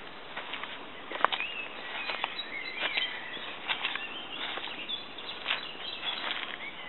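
Footsteps on dry leaf litter and twigs in woodland, irregular crackles and rustles, with a few short bird chirps about two to four seconds in.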